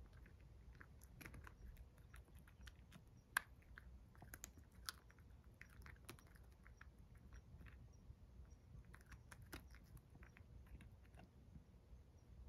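Cat chewing a large dried sardine, with faint, irregular crunching clicks and one sharper crunch about three and a half seconds in.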